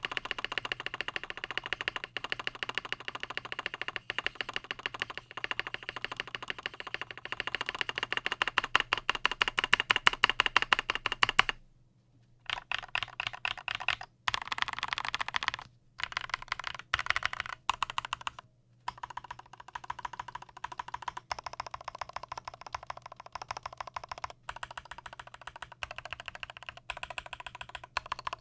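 Fast continuous typing on a KBD75V2 custom mechanical keyboard with lubed Durock POM linear switches on an aluminium plate, under PBT doubleshot keycaps. The keystrokes come in quick runs; they are loudest and densest about a third of the way in, with a few short pauses after that.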